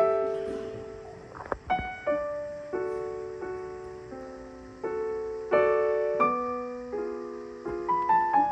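Slow solo piano music: chords and single notes struck every half second to a second, each left to ring and fade.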